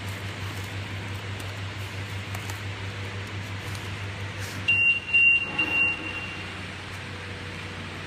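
Needle detector conveyor running with a steady low hum; about five seconds in, the detector's alarm gives three short high beeps as the padding passes through the detection head, its signal that a metal needle has been found.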